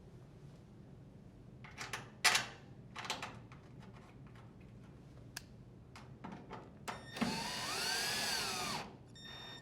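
Cordless drill driver running for about two seconds near the end, driving a screw into the dryer's sheet-metal panel, its motor pitch rising and then falling. A few clicks and knocks of handling come before it.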